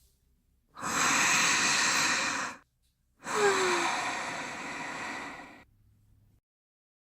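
Two long, noisy breaths, each lasting about two seconds, the second fading away with a brief falling wheeze near its start.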